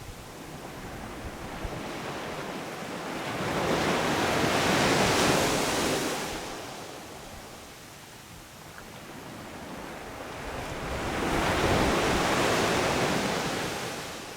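Sea waves breaking on a sandy beach: two waves swell up and wash in, about seven seconds apart, each hissing loudly before ebbing away. A light wind is also on the microphone.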